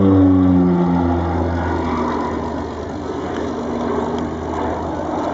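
North American Rockwell OV-10 Bronco's twin Garrett T76 turboprops passing by: the propeller drone drops in pitch through the first second as the aircraft goes past. It then settles into a steady lower drone with rushing noise that slowly fades.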